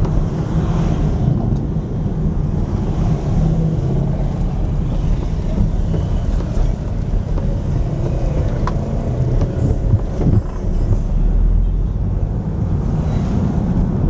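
Steady engine and road rumble heard from inside the cabin of a moving Volkswagen Beetle (vocho) taxi with its air-cooled rear flat-four, driving at a constant pace through city traffic.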